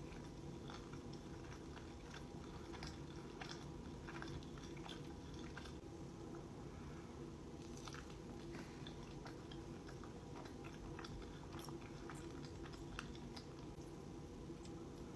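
Close-up chewing and biting of a meatball sub: irregular soft crunches and wet mouth clicks, with no talking.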